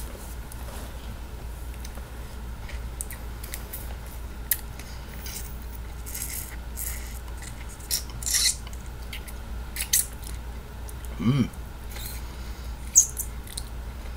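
Wet mouth sounds, scattered lip smacks and sucks, as a man sucks the juice out of a lime wedge. There is a short hummed "mm" about eleven seconds in, over a steady low electrical hum.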